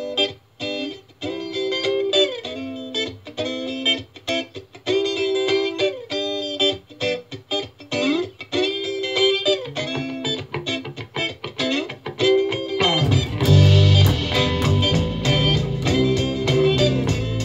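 An electric bass is played along with a recorded indie-pop song. At first a clean electric guitar melody with bending notes leads. About thirteen seconds in, deep bass notes and drums come in much louder.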